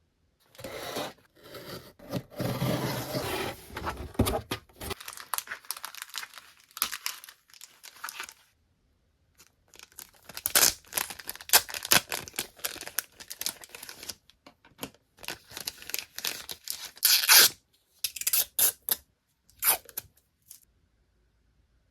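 Parcel packaging being torn open and crinkled by hand: irregular rustling and tearing, with a brief pause about nine seconds in and the loudest rip about seventeen seconds in.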